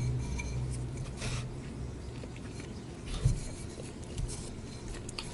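Light scrapes and small clicks of disposable wooden chopsticks in a bowl of rice, with a dull knock about three seconds in.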